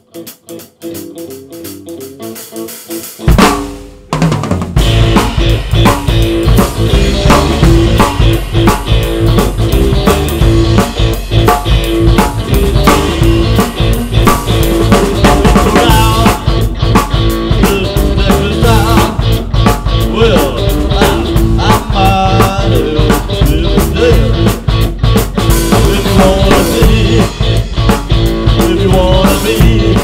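A few quiet guitar notes, then a loud hit a little over three seconds in, and the full band comes in: a Yamaha drum kit, electric guitar and bass guitar playing together at full volume.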